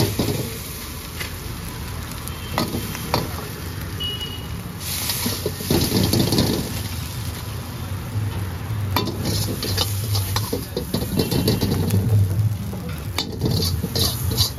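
Steel ladle scraping and clinking in a wok of fried rice as it is stirred and scooped out, a handful of sharp clinks spread through, over a steady low hum.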